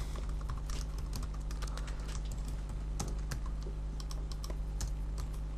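Computer keyboard typing: quick, irregular key clicks over a steady low electrical hum.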